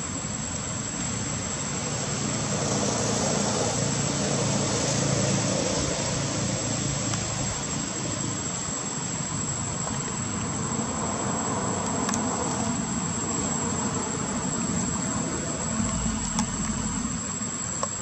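Steady outdoor background noise: a thin high drone held throughout, and a low rumble that swells over the first several seconds and then eases. A few faint clicks near the end.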